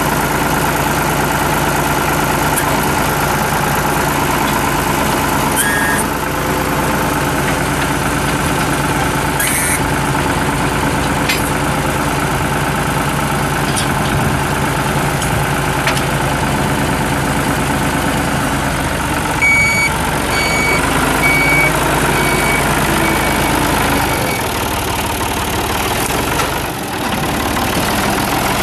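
Ford 545D tractor's New Holland four-cylinder diesel engine running steadily while the tractor drives about. About twenty seconds in comes a run of about six evenly spaced high beeps.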